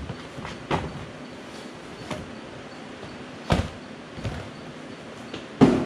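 Cardboard boxes being unpacked and set down on a counter: handling noise broken by about five knocks, the loudest near the end.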